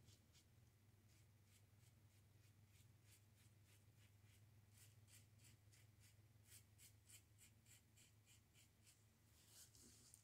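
Open-comb safety razor (Fatip Piccolo with a Gillette Nacet blade) shaving lathered stubble on the neck: a faint run of short strokes, about three a second.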